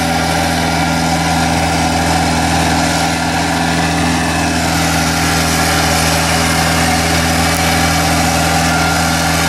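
A vehicle's engine idling steadily, a constant low hum that does not change in pitch.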